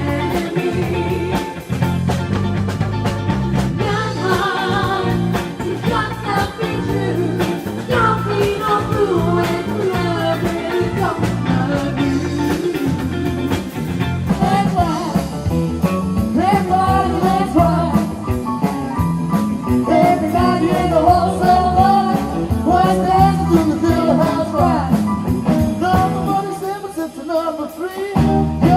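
Rock music with drums, guitar and singing, a steady beat throughout.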